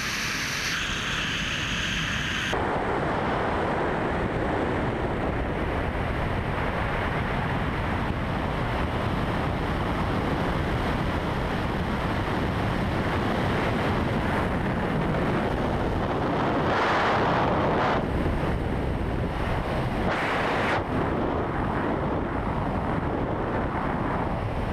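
Wind rushing over the camera microphone during a BASE jumper's flight, a steady rush of air that swells in gusts a little past the middle.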